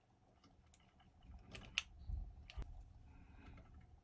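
Faint small clicks and rustling from hands handling pickup wires and a small plastic screw-terminal block, with one sharp click a little under two seconds in.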